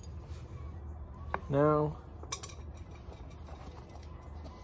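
A few light, sharp metallic clinks of hand tools and small steel parts being handled, over a steady low rumble.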